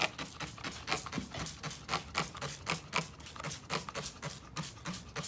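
Car parts being scrubbed clean with Purple Power degreaser: a quick, uneven run of short scrubbing strokes, several a second.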